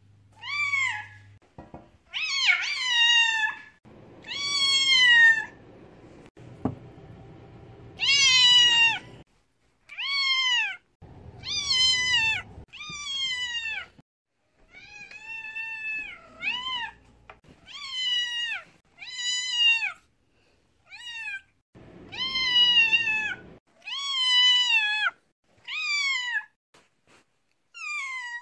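A deaf white long-haired cat meowing loudly over and over: close to twenty long, high-pitched meows, each falling in pitch at the end, with short gaps between.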